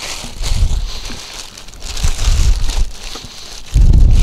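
Clear plastic wrapping crinkling and rustling as it is pulled off a power-chair seat. A few low rumbles come and go, the loudest near the end.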